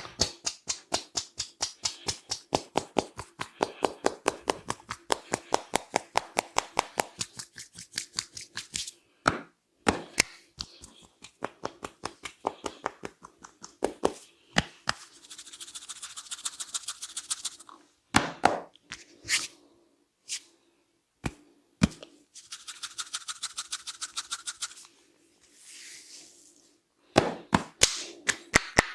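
Percussive head massage: hands striking the head in a fast, even rhythm of about four to five slaps a second. Midway it breaks into scattered single smacks and stretches of rubbing, then the fast slapping resumes near the end.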